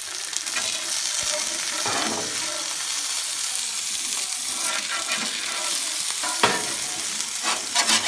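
A half-pound beef burger patty and potatoes sizzling steadily on a hot flat-top griddle, with a perforated steel spatula scraping against the griddle a few times, including a sharp scrape about six and a half seconds in.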